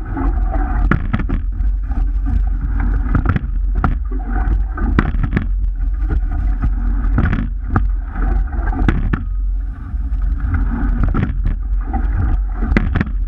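Crew rowing a sweep-oar racing shell: oars knock and clunk in their gates in a bunch roughly every two seconds, one bunch per stroke. Under them are the rush of water along the hull and a steady low rumble.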